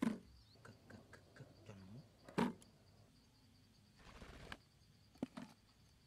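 A few short taps and scuffs, the first as the cardboard flaps of a hole trap in the dirt drop shut, over a faint steady high insect trill.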